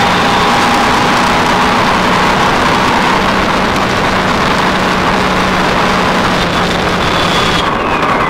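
Motorcycle at road speed: loud, steady wind rush on the microphone with the engine's drone beneath, holding an even pitch.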